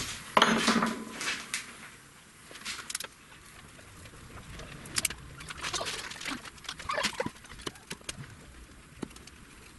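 Hands handling the insulated lead wires at an electric motor's terminal box: scattered light rustles and small clicks, loudest in the first second.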